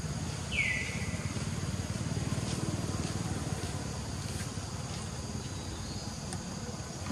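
Outdoor ambience: a steady low rumble under a steady high insect drone, with one short, high squeal that falls in pitch about half a second in.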